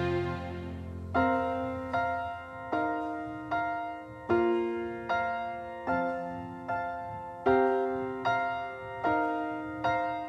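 Background music: a piano playing a slow, even run of single struck notes, about one every eight-tenths of a second, each ringing and dying away. It starts about a second in, after a held chord fades out.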